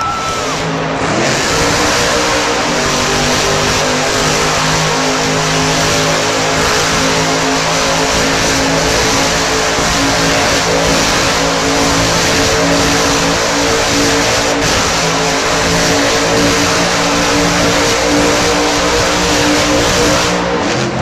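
Loud engine noise from motor vehicles in an arena: a steady engine note sets in about a second in and holds, rising slightly in pitch.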